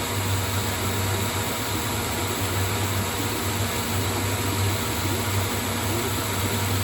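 ProtoTRAK CNC lathe running steadily with a low hum while it rough-turns a 4140 steel shaft at about 425 RPM on a slow, light feed.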